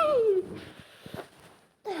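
The falling, voiced tail of a woman's sneeze, trailing off into breathing with a few small nose or mouth clicks. Near the end, a short breathy gasp with a falling pitch.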